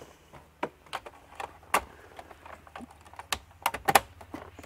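Plastic clicks and snaps as a dashboard air vent of a Lexus LX470 is worked into its opening and its locking tabs clip into place. The clicks are irregular, with several close together near the end.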